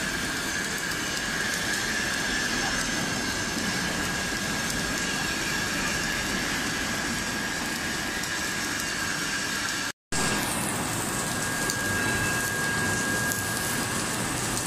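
Steady factory machinery noise, a hum and hiss with a thin, steady high whine over it. It drops out for a moment about ten seconds in, then carries on.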